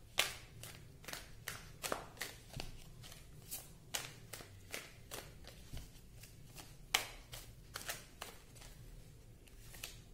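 Tarot deck being shuffled by hand: a run of short, sharp card snaps and taps, about two a second, with one louder snap about seven seconds in, thinning out near the end.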